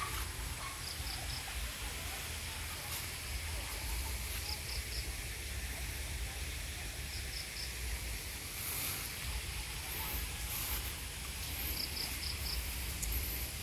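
Rural outdoor ambience: a steady high insect hiss over a low rumble, with short chirps in groups of three or four every few seconds.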